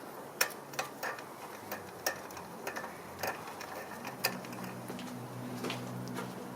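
Irregular sharp clicks and taps of hand tools working on the engine around a loose spark plug, about one every half second. A low steady hum joins about four seconds in.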